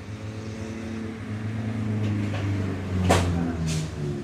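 A motor vehicle engine running and growing louder, its pitch shifting, with two sharp knocks about three seconds in.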